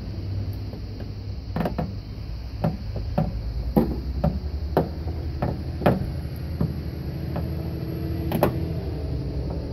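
About ten sharp clicks and taps, irregularly spaced, from a hand tool and parts being worked against the car door's inner panel during reassembly, over a steady low rumble.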